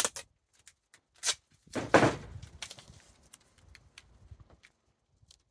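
Duct tape being ripped and peeled: a short tear about a second in, then a longer, louder rip around two seconds in that trails off into light crinkling and small ticks.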